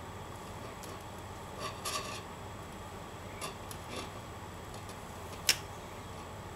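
Plastic scoubidou lanyard strings rubbing and scraping as knots are worked by hand: a few soft scrapes and one sharp click about five and a half seconds in, over a steady background hiss.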